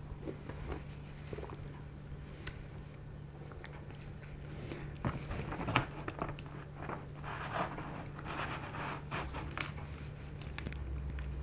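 A few small clicks of sipping from a drink can, then a pizza slice torn free from its cardboard box, with crust crackling and cardboard scraping that is loudest about five to six seconds in.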